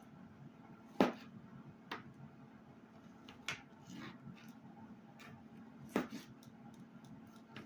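Knife cutting Roma tomatoes on a cutting board: a few sharp, irregularly spaced knocks of the blade striking the board, the loudest about a second in and about six seconds in.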